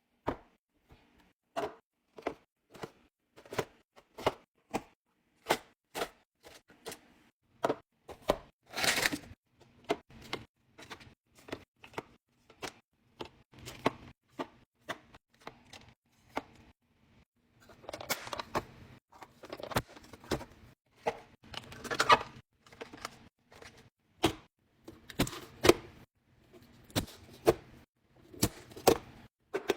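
Containers and packages clacking and tapping as they are handled and set down while a fridge is restocked: a steady run of short knocks and clicks, with a few longer, noisier handling sounds, the loudest about nine seconds in.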